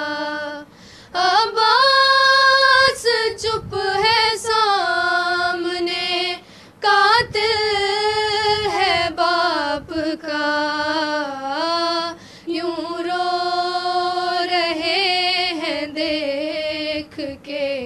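Young women's voices singing a noha, a Muharram lament, with no instruments, in long drawn-out notes that bend and waver in pitch, broken by a few short pauses.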